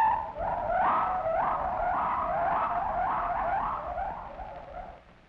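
Gibbon calling: a run of rising whoops, about two a second, that fades out near the end.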